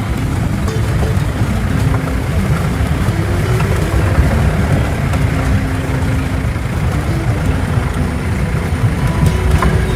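Safari jeep's engine running as it drives, a steady low rumble whose pitch steps up and down now and then.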